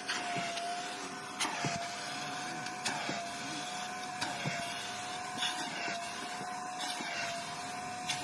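Kärcher Puzzi spray-extraction vacuum running steadily with a constant whine over a hiss, with a sharp click about every one and a half seconds.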